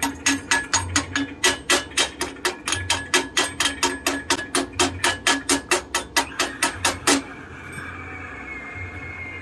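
Rapid, even hammer strikes on metal, about four a second, with a short metallic ring to each. The strikes stop abruptly about seven seconds in.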